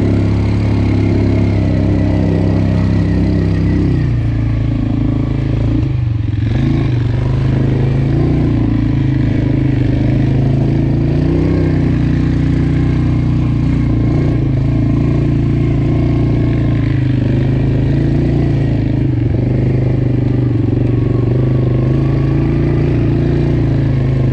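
Yamaha Grizzly ATV engine running steadily at low revs while the quad is ridden, with a slight shift in engine pitch about four seconds in.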